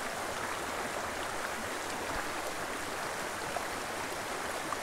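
A small mountain creek flowing over rocks: a steady, even sound of running water.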